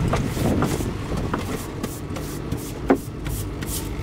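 Deck brush scrubbing a boat's wet, bait-strewn deck in quick repeated strokes, with a sharp knock about three seconds in, over a low steady rumble.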